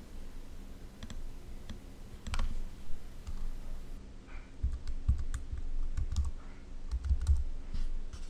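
Typing on a computer keyboard: irregular keystrokes, with a few low thuds among them in the second half.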